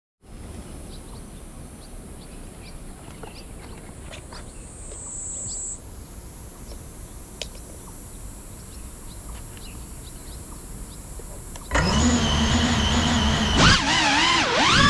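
Faint outdoor background noise with scattered small ticks, then about twelve seconds in the motors of a GEPRC CineLog35 cinewhoop FPV drone spin up into a loud, steady, high whine. Near the end the whine swings up and down in pitch as the throttle is worked and the drone lifts off.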